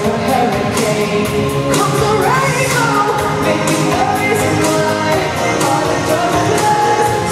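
Live pop music with a woman singing, played loud over an arena sound system and recorded from within the crowd.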